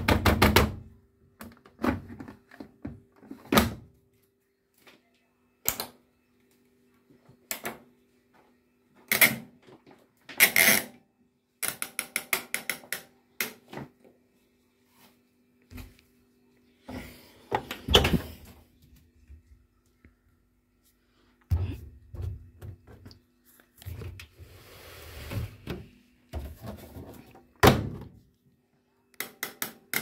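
Irregular knocks, thuds and clicks from a front-loading washing machine's door and controls being handled, with a run of about ten quick clicks near the middle, over a faint steady hum.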